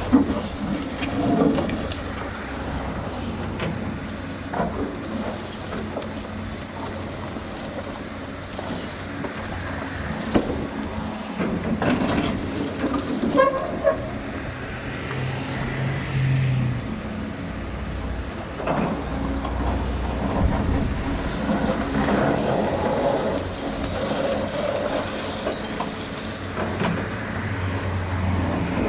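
Excavator's diesel engine running under changing load, with scattered knocks and clanks from the machine working.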